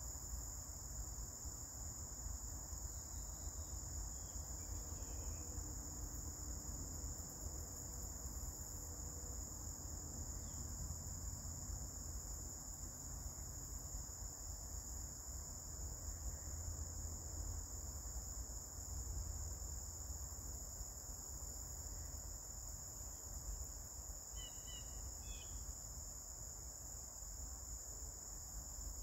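Steady high-pitched chorus of insects, unbroken throughout, over a low rumble. A few faint short chirps come near the end.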